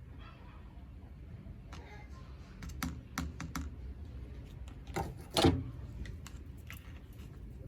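Scattered light clicks and taps of wood and tools being handled, with a louder knock about five and a half seconds in.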